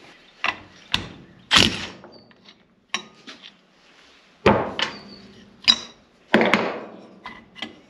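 Hand tools and power steering pump parts clanking and knocking on a workbench: a string of separate sharp knocks, one with a brief metallic ring.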